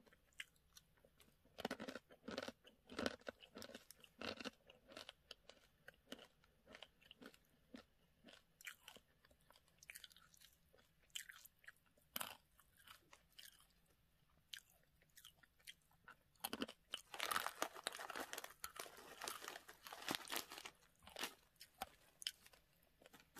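Close-miked crunching and chewing of dry, uncooked instant ramen noodles: sharp, irregular crackles, with a denser stretch of crunching about three-quarters of the way through.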